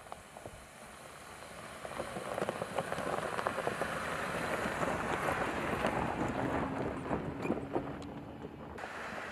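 Jeep Gladiator pickup driving past on a dirt track, its tyres crunching and crackling over gravel. The sound builds up, is loudest as the truck goes by in the middle, then eases off.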